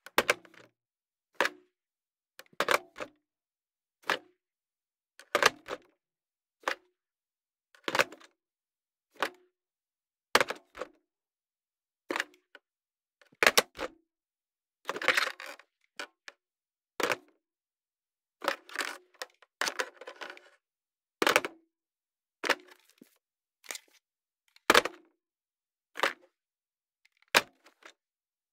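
Telephone handsets being picked up and hung up: a run of about twenty separate clicks and clunks of handset against cradle, one every second or so. A few of them, about halfway through and again a little later, are longer and rattling.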